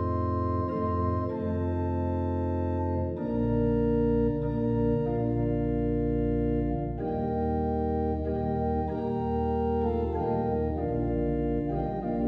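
Organ music playing slow, sustained chords that change every second or two.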